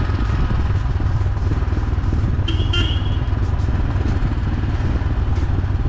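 Motorcycle on the move: a steady low rumble of engine and wind on the microphone, with a short vehicle horn beep about two and a half seconds in.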